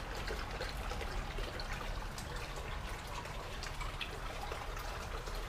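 Water dripping and trickling outdoors: a steady hiss with many small scattered ticks.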